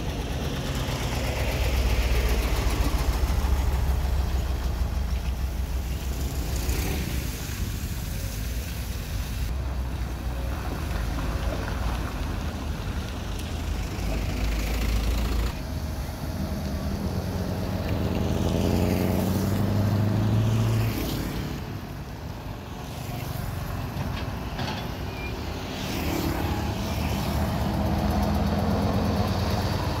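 Heavy diesel engines at a roadside construction site: a Cat hydraulic excavator running while it works a gravel pile, with trucks passing on the road. The low rumble is steady throughout, and about two-thirds through an engine note climbs and falls again.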